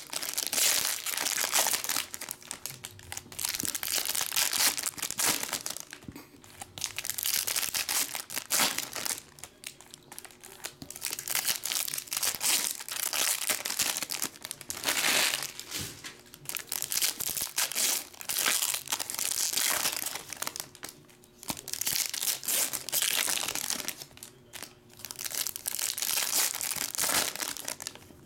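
Foil trading-card pack wrappers being torn open and crumpled by hand, in irregular crinkling bursts that come and go every second or two.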